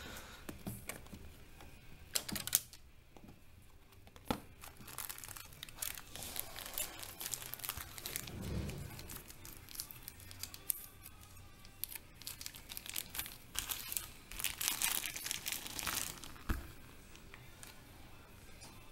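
Clear plastic zip-lock bag crinkling and rustling as hands open it and rummage through it, in irregular sharp crackles that come thickest in two stretches, around the middle and again about three-quarters through.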